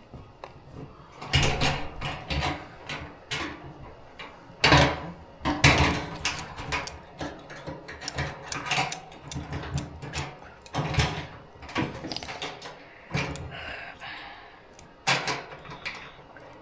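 Irregular knocks, clanks and rattles of hands and tools working on a car's fuel tank and fuel lines, a few sharper hits among them.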